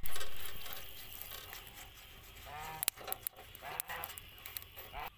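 Oil brushed onto a hot charcoal-grill grate sizzles, loudest at the start and fading over about two seconds, with a few clicks of the brush on the bars. A few short animal calls sound about two and a half seconds in and again near the end.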